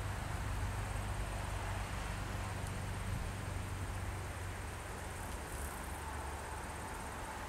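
A high, thin, steady insect trill over a low steady rumble, like wind on the microphone.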